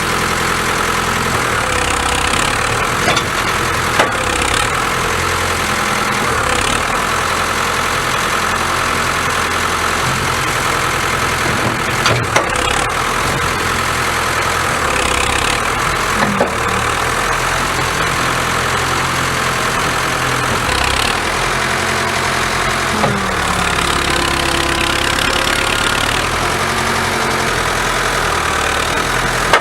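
Backhoe's diesel engine running steadily while its hydraulics lift the machine, the engine note shifting now and then as the load changes, with a few short metallic knocks.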